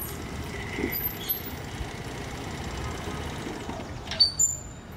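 Motor scooter running at low speed as it pulls up and stops, with a couple of sharp clicks and a short high squeak near the end as it is parked.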